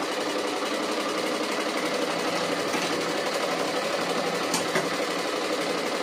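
Motor-driven domestic sewing machine running steadily at speed, a fast even clatter of stitching through quilt layers over a steady motor hum. A brief sharp click about four and a half seconds in.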